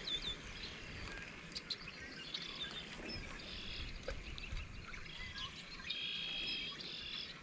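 Wild birds chirping in short calls, with a longer, drawn-out call about six seconds in, over a low rumble of wind on the microphone.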